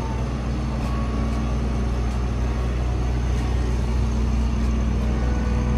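Steady low rumble of motor-vehicle engines on a city street, a constant hum with no breaks.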